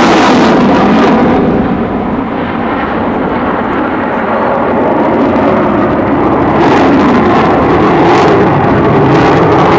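A jet fighter flies past, loud, its engine noise dropping in pitch as it goes by, then a steady jet rumble.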